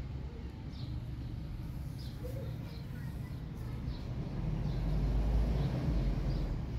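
Outdoor garden ambience: a steady low rumble that swells about two-thirds of the way through, with faint short bird chirps now and then.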